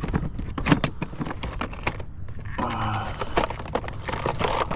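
Sharp clicks of the snap latches on a small plastic case being unsnapped and the lid opened.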